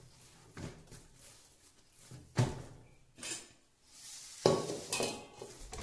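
Stainless steel kitchen vessels (a large paraat and a steel bowl) knocking and clinking on a wooden table as a ball of dough is handled: a handful of separate knocks, the loudest about two and a half seconds in, and a ringing metal clank near the end.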